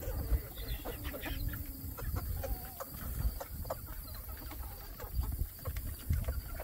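A flock of backyard chickens clucking and calling as they feed, many short scattered clucks and calls from several birds at once over a low rumble.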